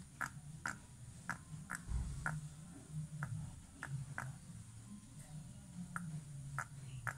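Kittens purring while being stroked: a low, steady rumble, with soft sharp clicks every half second or so.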